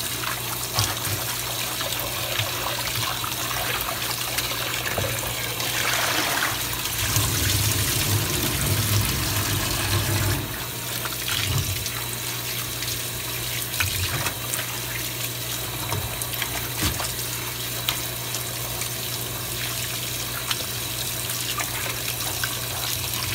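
Kitchen faucet running into a plastic tub of raw pork in a stainless steel sink, water splashing as gloved hands rub and rinse the meat. The splashing is louder for a few seconds about six seconds in.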